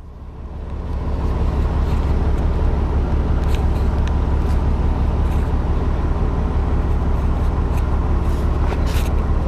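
Heavy truck diesel engine running steadily, as a wrecker's engine does when powering the boom hydraulics during a lift, with a few faint clicks.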